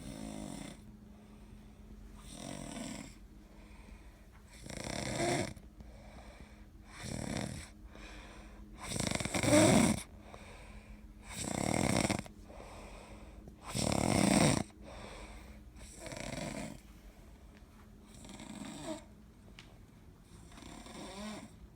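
A person snoring in a steady rhythm, about one snore every two seconds, with the loudest snores in the middle.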